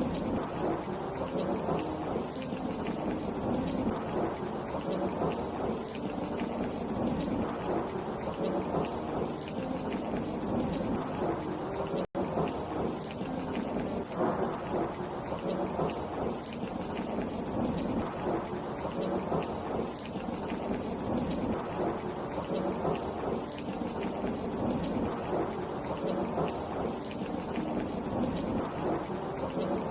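Heavy rain pouring steadily, with a dense, even hiss. The sound cuts out for an instant about twelve seconds in.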